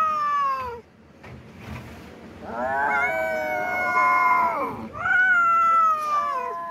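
Kittens yowling during rough play: long, drawn-out meows, one trailing off a little under a second in, then after a short quiet gap three more long calls one after another, each dropping in pitch as it ends.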